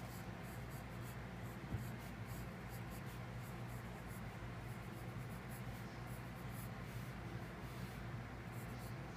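Wooden pencil scratching on paper in many short sketching strokes, several a second, over a low steady hum.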